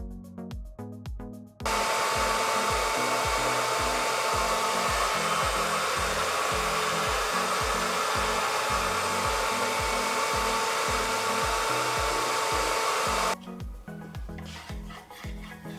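Ryobi table-mounted router running steadily at full speed with a chamfer bit cutting the edge of a hardwood cutting board, a high, even whine with a hissing edge. It starts abruptly about two seconds in and cuts off suddenly a couple of seconds before the end, with background music with a steady beat throughout.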